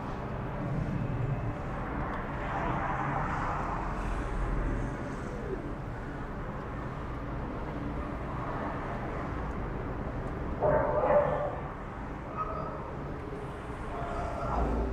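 Dogs barking, with a louder burst of barks about eleven seconds in, over a steady low rumble.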